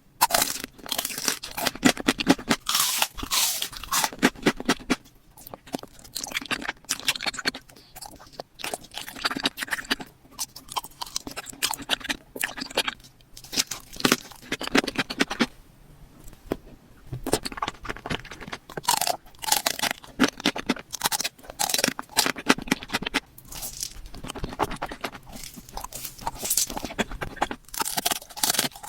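Close-miked eating: crisp crunching bites and chewing, coming in bursts with short pauses between them.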